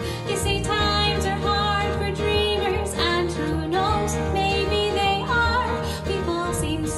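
A woman singing a slow musical-theatre ballad over piano, acoustic guitar and bass guitar; her voice comes in just after the start.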